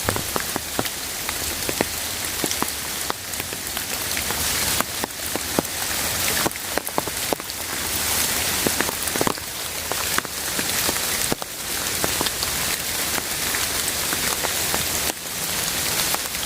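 Steady rain falling, a dense hiss broken by many sharp, irregular ticks of individual drops striking close by.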